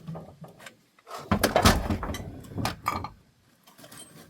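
Heavy metal engine parts knocking and clattering as they are handled and set down, a cluster of clunks about a second in that goes on for under two seconds, with lighter knocks around it.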